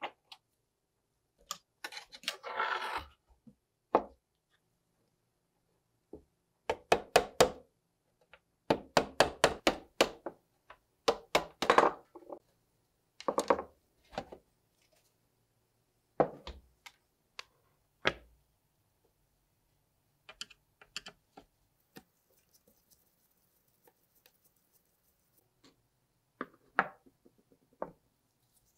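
Hard plastic and metal parts of a portable Sony TV knocking, clicking and rattling as the set is taken apart by hand and the cabinet is lifted off the chassis and set down on a wooden bench. The knocks come in quick irregular clusters, busiest in the middle, with a short scrape of plastic near the start and only scattered taps later.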